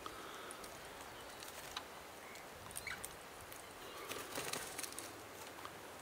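Faint, scattered clicks of eastern rosellas cracking seed on a wooden feeding tray, with a short cluster of clicks about four seconds in.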